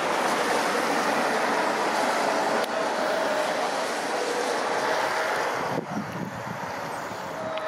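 Road traffic passing on the street: the noise of motor vehicles, with a faint engine hum through it, easing off in two steps, once about a third of the way in and again near the end.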